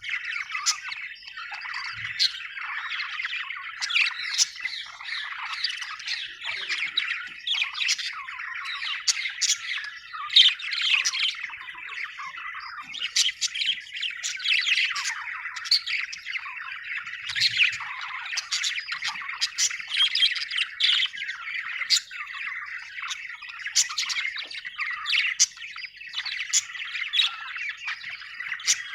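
Budgerigars chirping and chattering without a break, many short, sharp chirps and squawks overlapping.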